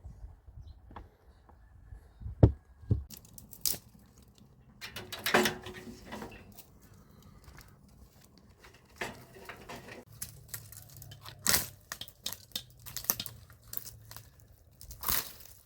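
Irregular rustling, crinkling and tearing with scattered light clicks and knocks from hands handling food and kitchen things. A sharp knock about two and a half seconds in is the loudest.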